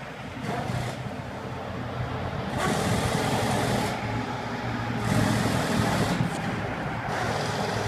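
A semi-truck pulling a flatbed trailer drives past close by on wet pavement: its engine runs with a steady low hum while its tyres hiss through the water in three loud waves of spray. A car follows across the lot near the end.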